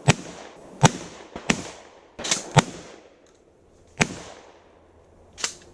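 Shotgun shots fired in quick succession, about seven sharp reports over the stretch, unevenly spaced with two nearly back to back in the middle, some louder than others, each with a short echoing tail.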